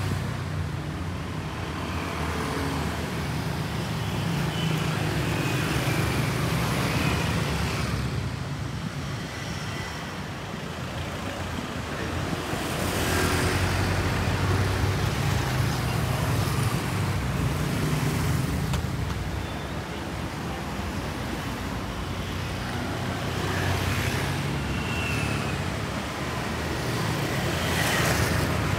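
City street traffic: a steady hum of vehicle engines, with the sound swelling and fading as vehicles pass, and closer passes about halfway through and near the end.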